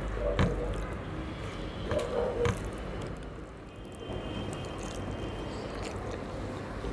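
Eating by hand from a steel plate: fingers mixing rice and curry, with a few sharp clicks against the metal plate in the first couple of seconds, then a large mouthful being taken and chewed.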